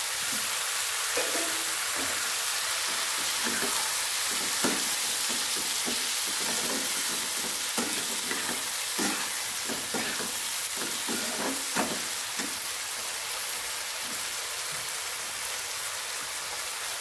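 Mushrooms with a wet ground garlic-ginger-tomato-chilli paste frying in mustard oil in a non-stick pan, a steady sizzle. A metal spatula stirs and scrapes against the pan in short irregular strokes through the first three quarters.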